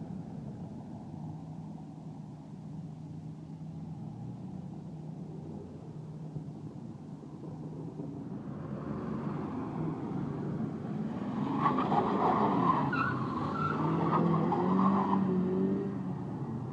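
Car engines running steadily, then a car revving and pulling away hard with its tyres squealing, loudest about two thirds of the way through.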